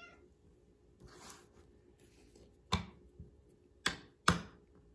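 Three sharp taps, one on its own and then two close together, the last the loudest, after a faint rustle.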